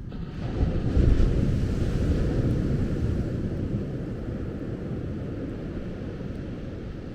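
A wave breaking and washing up the beach: a rush of surf that swells sharply about a second in, then slowly fades. Low wind rumble on the microphone runs underneath.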